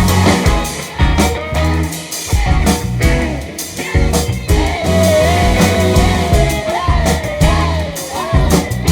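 Live band playing a rock-leaning groove, with drum kit and bass in a repeating pattern; from about five seconds in, a wavering lead melody rides on top.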